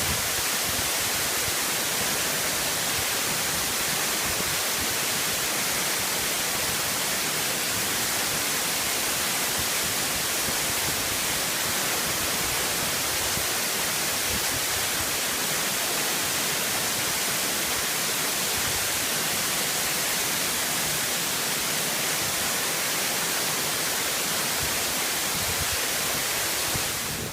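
Steady rush of falling water in a mountain stream or waterfall, an even hiss that holds at one level throughout.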